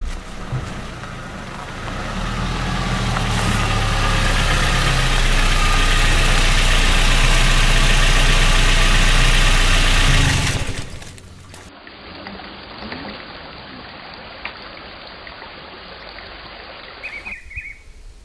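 A motor vehicle's engine running steadily, growing louder over several seconds and then cut off abruptly about ten seconds in. After a quieter stretch, a few bird chirps come near the end.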